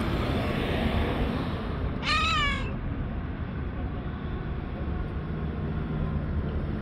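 A white domestic cat gives one short meow, rising then falling in pitch, about two seconds in, over steady low background noise.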